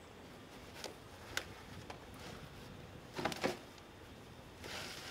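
Sandbag being handled and shaken out over a plastic crate: quiet rustling of sand and sacking with a few small knocks, a cluster of louder knocks about three seconds in, and a short rustle near the end.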